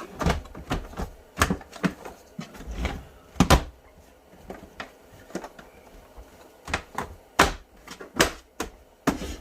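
Irregular clicks and knocks of parts being handled and fitted on a Ridgid shop vacuum that is not running, as a filter bag is put in; the loudest knocks come about three and a half and seven and a half seconds in.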